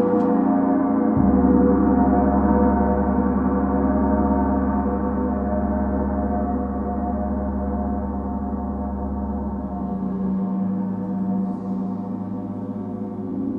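Planetary gongs ringing in a long, sustained wash of many overlapping tones. A low steady drone comes in about a second in and drops out around ten seconds in.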